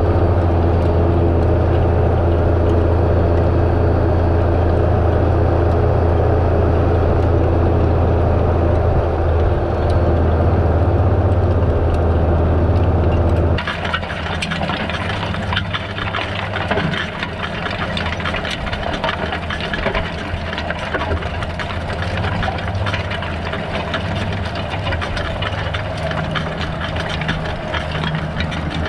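John Deere 6930 tractor engine running steadily under load while pulling a cultivator, heard from the tractor as a loud, steady low drone. About halfway through, the sound changes abruptly to a dense crackle and rattle of soil running through the cultivator's tines and crumbler rollers, with the engine drone quieter underneath.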